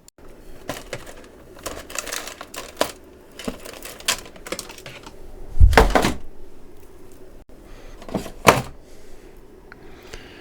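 Irregular clicks, taps and knocks of hands handling probes and parts on an electronics workbench, with a louder thud about six seconds in and another knock about eight and a half seconds in.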